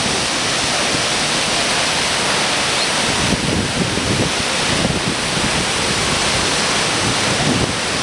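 Waterfall plunging into a narrow rock gorge: a loud, steady rush of falling water.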